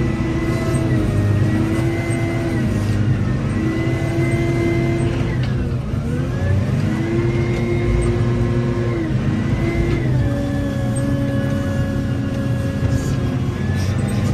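Wheel loader's diesel engine running hard as heard from the cab, its note shifting up and down with the work. About six seconds in the engine pitch dips sharply and climbs back. A high whine rises and falls with it.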